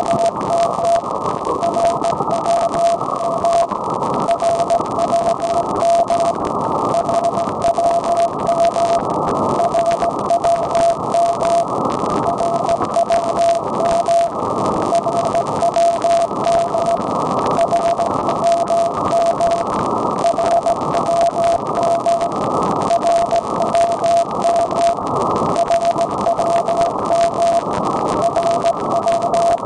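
Shortwave receiver audio of the RWM time-signal station on 9996 kHz: a steady beat tone from the station's carrier, broken by short gaps at about one-second intervals, over loud hiss and crackling static.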